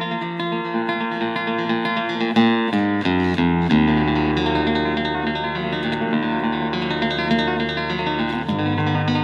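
Background music led by plucked guitar, with a steady bass line.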